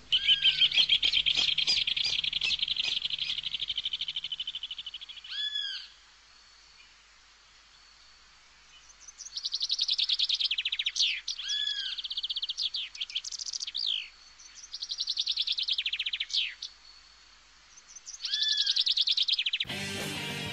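A songbird singing in four bouts of fast, high trills, each a few seconds long with pauses between, some phrases including short arching notes.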